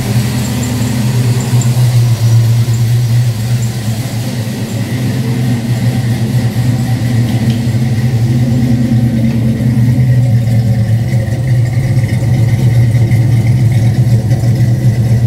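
1969 Ford Mustang's engine idling steadily, a low, even, mean-sounding exhaust note, freshly started.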